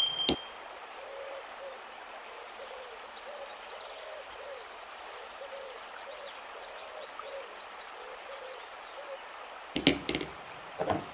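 Faint repeated hooting calls from an animal, about two a second, over a steady outdoor hiss. Near the end come a few sharp knocks as a plastic toy elephant is set down in a plastic basket.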